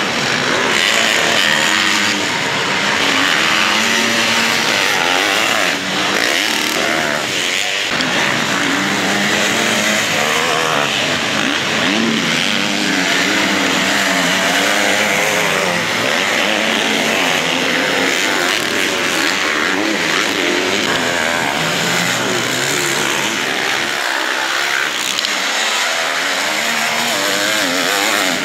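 Several motocross dirt bike engines revving up and falling back as the bikes ride past, overlapping one another.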